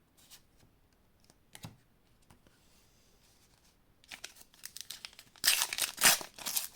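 Foil trading-card booster pack being torn open and crinkled, starting about four seconds in and loudest near the end, after a few faint clicks.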